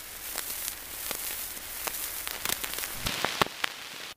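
Surface noise of a 1923 Victor 78 rpm shellac disc playing on after the music has ended: steady hiss with scattered crackles and clicks, a few louder pops near the end, then it cuts off abruptly.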